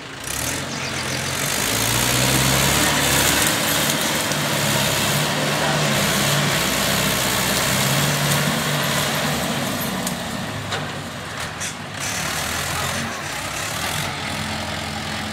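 Mahindra 585 tractor's four-cylinder diesel engine running under load as its front dozer blade pushes soil and brush, getting louder over the first two seconds and then staying loud.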